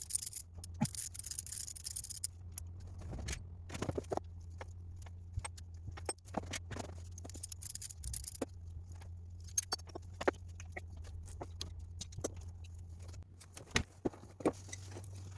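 Hand tools clicking, knocking and scraping on metal motorcycle parts during stator work, in scattered irregular strokes over a steady low hum, with a hiss during the first two seconds.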